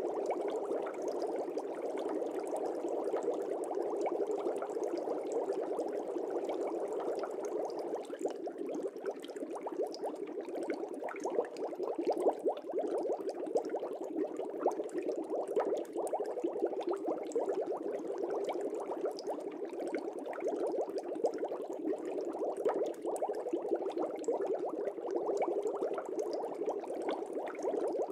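Fish tank air bubbles: a steady, dense stream of fine bubbling with no pauses.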